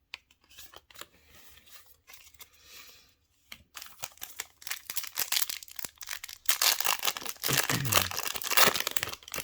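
Foil booster-pack wrapper being crinkled and torn open. Faint rustling at first, then a dense crackling that grows loudest over the last three seconds.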